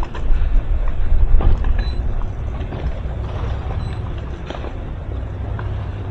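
Towboat under way at slow speed: a steady low rumble of the boat's engine and water, louder in the first two seconds.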